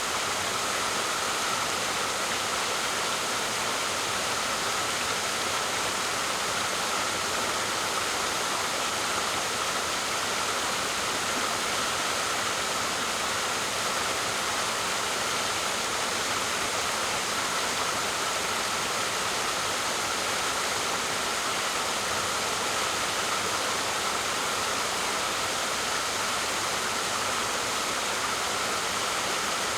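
Waterfall: a steady, unbroken rush of falling water, more hiss than low rumble.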